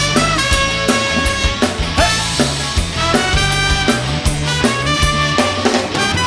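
Band playing an instrumental passage without vocals: a drum kit keeps a steady beat under bass and sustained melodic lines.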